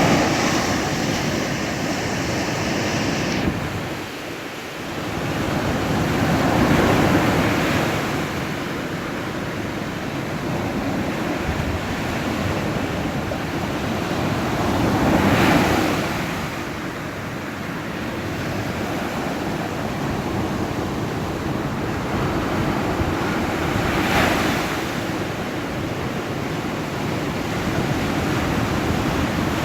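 Ocean surf: waves breaking and washing in a steady hiss, with a bigger wave swelling up about every eight or nine seconds.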